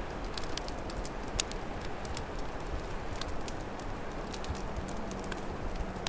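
Open wood fire crackling, with irregular sharp pops and snaps, over a steady low rumble of wind.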